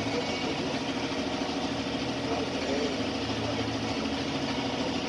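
Vehicle engine idling steadily, with a low, even throb, while the vehicle waits at a red light.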